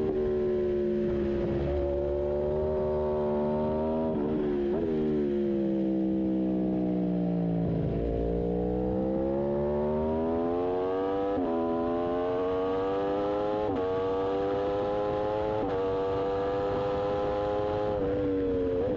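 Aprilia RSV4 1100 Factory's V4 engine at race pace. The revs fall with a few short blips, typical of downshifts, to a low point about halfway through, then climb again as it accelerates, the pitch dropping at an upshift about every two seconds.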